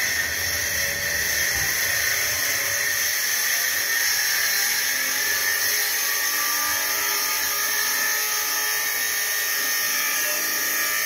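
A shop power tool running steadily off camera, a loud high hissing whine that holds even.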